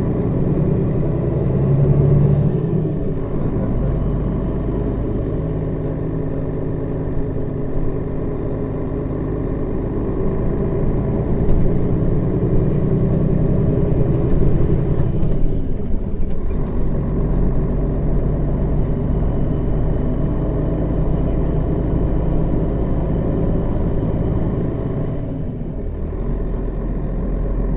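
Diesel engine of a Setra S 315 NF city bus with a manual gearbox, running under way. Its note breaks off briefly about 3, 16 and 25 seconds in, at gear changes.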